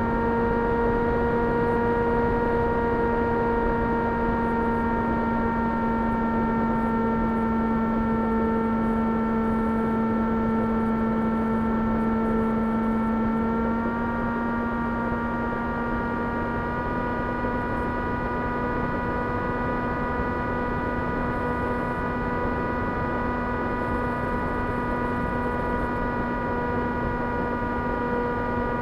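2300KV brushless electric motor and propeller of an S800 FPV model plane running steadily, a high hum over a rush of air. Its pitch steps up slightly about halfway through and again a few seconds later as the throttle changes.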